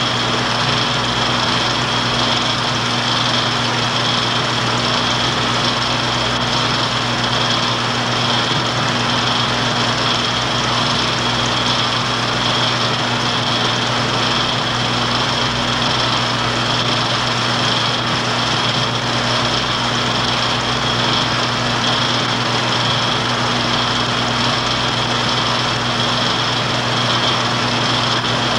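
Steady whir of a running film projector, a constant mechanical drone with a hum and a thin high whine that never change.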